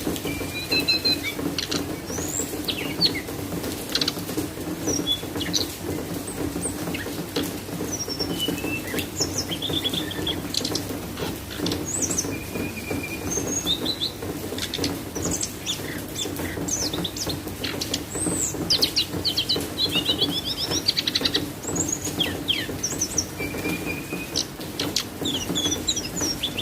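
A small songbird chirping and twittering in quick, varied phrases of high whistles and trills, a bird newly in moult. A steady low hum runs underneath.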